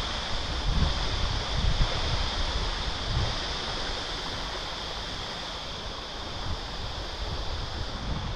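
Wind on the microphone, buffeting in gusts over the first three seconds or so and then settling to a steadier rush, over an even high hiss.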